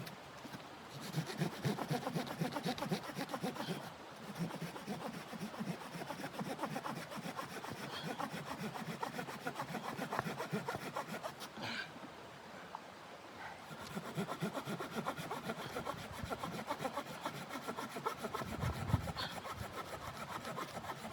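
Hand saw cutting through wood in quick back-and-forth strokes, stopping briefly about 4 seconds and 12 seconds in before carrying on.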